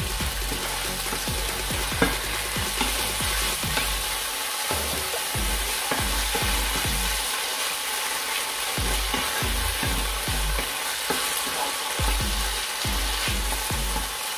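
Chicken livers sizzling in a frying pan as a wooden spatula stirs them, with light scrapes and taps of the spatula against the pan, one sharper about two seconds in.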